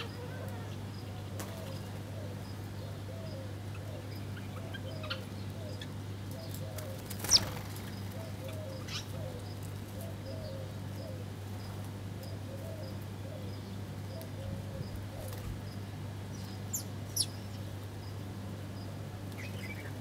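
House sparrows chirping now and then, with a sharp chirp about seven seconds in and a couple more near the end, and wings flapping as birds flutter in and out at a feeding dish. A steady low hum runs underneath.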